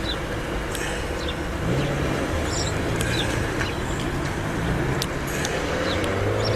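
A car engine running, its low hum growing stronger from about two seconds in, with short high bird chirps scattered throughout.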